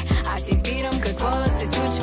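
Pop/R&B song performed with band backing: a young woman singing lead over a steady bass line and a kick drum beating about twice a second.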